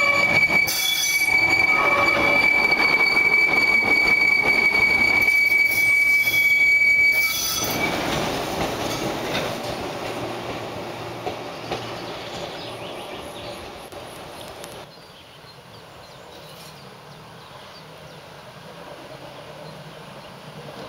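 Steel wheels of a historic tram squealing steadily on a curved track as it approaches and passes, the squeal stopping about seven seconds in; then its running rumble fading as it moves away. About two thirds of the way through the sound drops to a faint, distant tram running.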